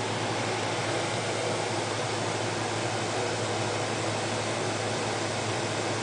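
Steady whirring hiss of running computer fans, with a low hum underneath and no clicks or changes.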